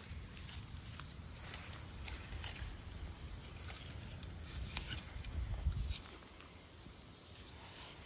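A hand garden fork digging into soil around an iris clump: scattered crunching and scraping of the tines in earth and roots, with leaves rustling. Under it runs a low rumble that dies away about six seconds in.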